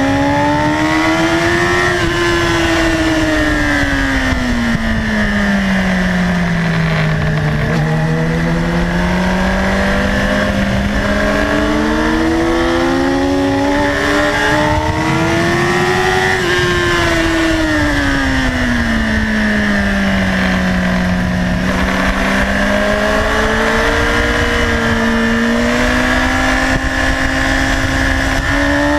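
Sport motorcycle engine heard from on board at track speed, its note falling and rising in long smooth sweeps, twice each, as the rider brakes and accelerates through the corners. Heavy wind rush on the microphone.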